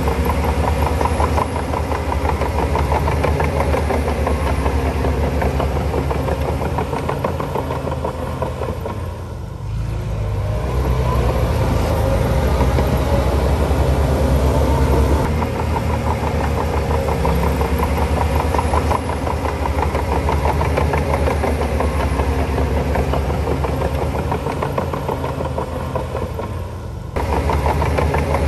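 Heavy diesel engine of a Shantui crawler bulldozer running steadily. It eases off briefly about ten seconds in, then picks up again, and changes suddenly shortly before the end.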